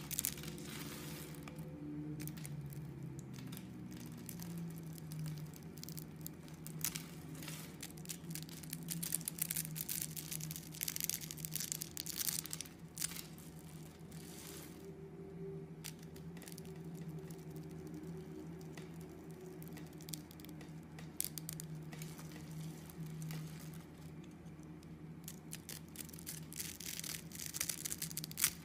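Soap bars scored into small cubes being pressed and crumbled apart by hand. The cubes break off with crisp crackling and rustling that comes in irregular spells, over a faint steady hum.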